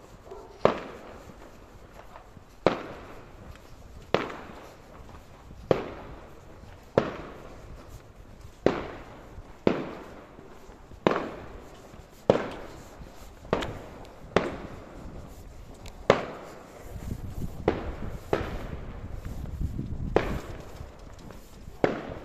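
Fireworks going off: about fifteen sharp bangs, one every second or so, each with an echoing tail. A low rumble rises under the bangs in the last few seconds.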